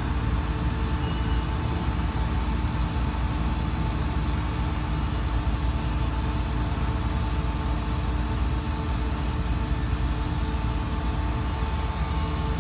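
Putzmeister Sika PM 500-PC shotcrete machine running steadily, its power pack driving the hydraulics that move the spraying boom. It makes a constant low drone with a few steady tones above it.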